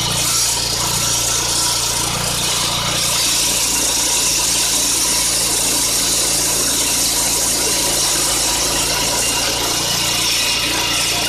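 Concrete saw running steadily: a constant engine drone under a strong, even high hiss.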